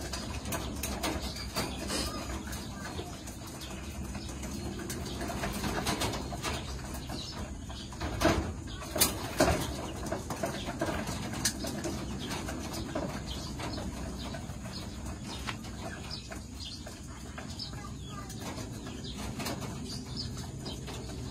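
Domestic pigeons cooing and pecking at grain on a wire floor, with many small pecking clicks and some wing flaps. A few louder sharp knocks come about eight to nine and a half seconds in.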